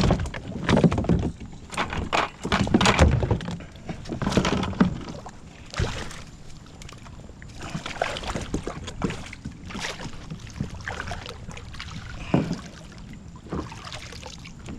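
Water splashing with knocks and thuds as a big hooked catfish on a jug line is brought in; busiest and loudest in the first five seconds, then scattered, quieter splashes and knocks.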